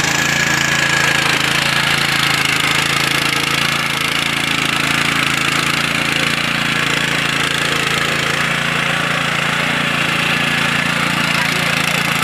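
Small single-cylinder engine of a walk-behind power tiller running steadily while the tiller works through a flooded paddy field on cage wheels.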